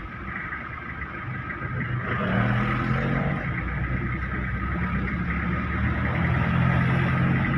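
Engine of the vehicle being driven, heard from inside the cab in slow traffic, with road noise. It gets louder and its pitch shifts about two seconds in as it picks up speed.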